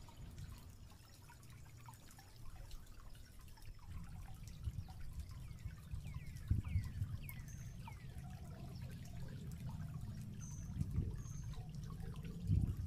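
Water trickling softly, with a few short high chirps that fall in pitch about six to seven seconds in.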